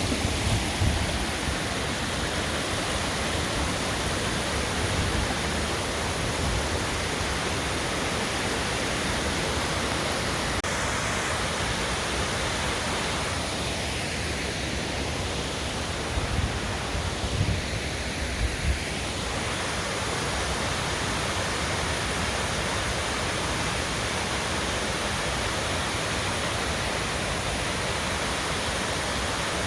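Ithaca Falls, a large waterfall, pouring with a steady, even rush of water. A few brief low thumps come at the start and again around the middle.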